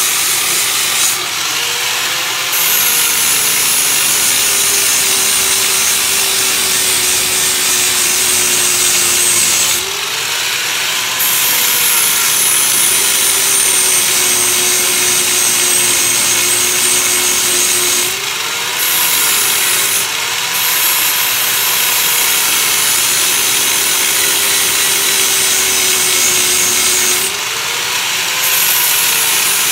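Handheld rotary grinding tool scrubbing paint and rust off steel engine-bay sheet metal, a continuous harsh scrubbing with a steady motor whine. About five times the load eases and the motor pitch rises briefly before it bites into the metal again.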